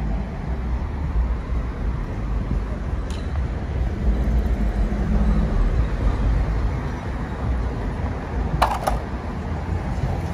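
A car moving along a city street, giving a steady low rumble of engine and road noise. There is a faint click about three seconds in and a brief clatter of sharp clicks near the end.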